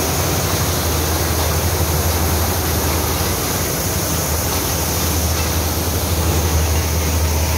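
Maize sheller driven off the PTO of a Massey Ferguson 260 tractor, running steadily under load: the low hum of the tractor's three-cylinder diesel under a continuous hiss of the thresher and of shelled kernels pouring from the discharge pipe.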